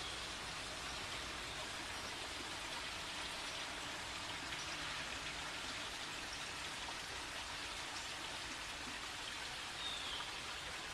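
Steady hiss and patter of wet snow falling during a snowstorm. A faint, short, high falling chirp comes near the end.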